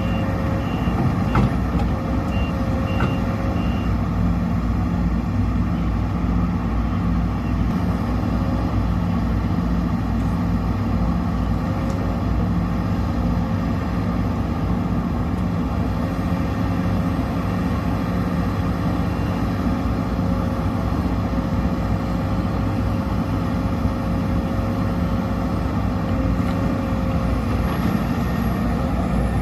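Sumitomo SH210 hydraulic excavator's diesel engine running steadily under work, with a thin steady tone held over it for most of the time.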